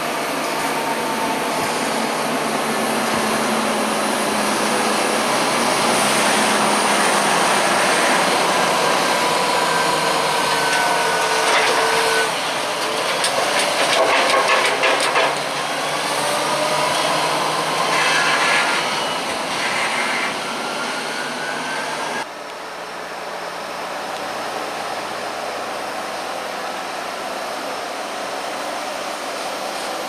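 Fendt 724 Vario tractor working a maize silage clamp with a buckrake: steady engine and machine noise with whining tones that rise and fall, and a spell of rattling clicks in the middle. About two-thirds of the way through it drops suddenly to quieter, steadier running.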